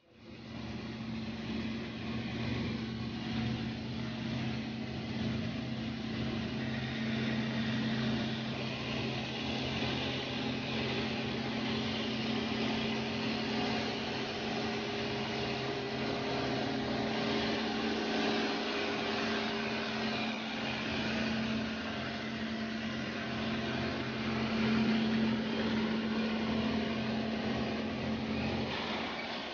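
Engine of walnut harvesting machinery running steadily, a constant low hum with a mechanical noise over it.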